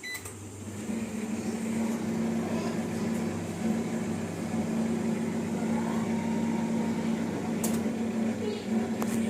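Microwave oven in convection mode starting up: a short beep at the start, then a steady electric hum from the running oven that settles within the first second.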